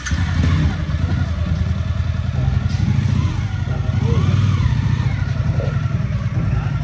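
Motorcycle engine running at a steady idle, a low pulsing rumble.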